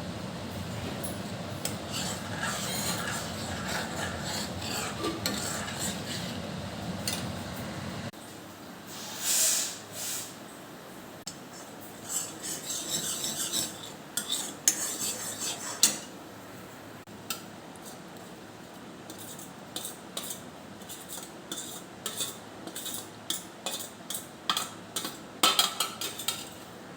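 Metal kitchen utensils stirring, scraping and clinking against pots and dishes in irregular strokes. A steady hum underlies the first eight seconds and stops abruptly.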